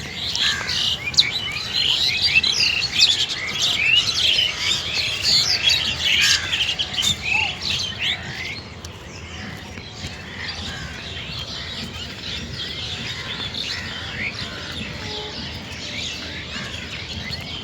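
Many small birds chirping and twittering together in a dense chorus, busiest and loudest for about the first eight seconds, then thinner and quieter.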